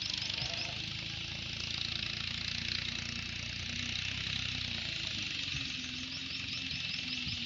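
An engine running steadily: a low rumble, with a steady high hiss over it.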